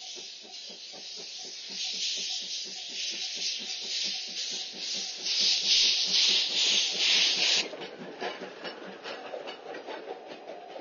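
Tank steam locomotive passing at speed, its exhaust chuffing in a fast, even beat under loud hissing steam from the cylinder drain cocks. The hiss is loudest in the middle and cuts off suddenly about three quarters of the way through. After that the passenger coaches rattle by.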